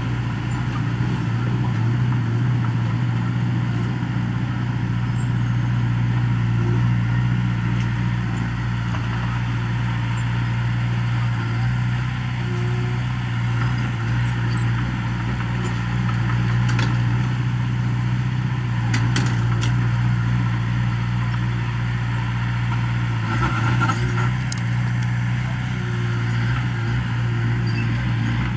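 Komatsu small crawler bulldozer's diesel engine running steadily as it works across loose soil, with a few short knocks around the middle and later.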